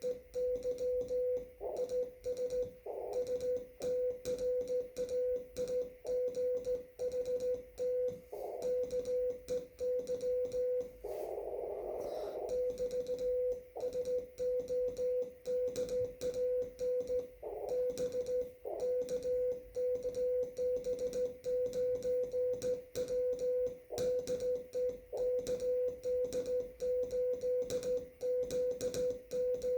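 Morse code (CW) on a ham radio: a single steady mid-pitched tone keyed in quick dots and dashes, with faint band hiss coming up between the characters, loudest about twelve seconds in.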